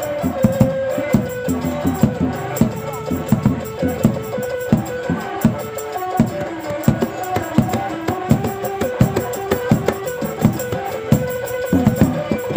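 Music accompanying a Sasak rudat dance: hand drums struck in a fast, steady rhythm, several strokes a second, under a held melody line.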